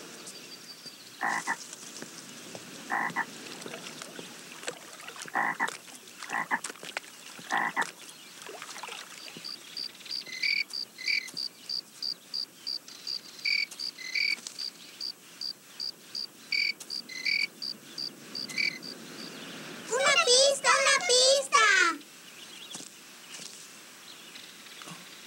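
Nature sound effects: frog croaks in short separate calls, then a fast run of high chirps, about three a second, for roughly ten seconds. Near the end comes a loud warbling, gliding call lasting about two seconds.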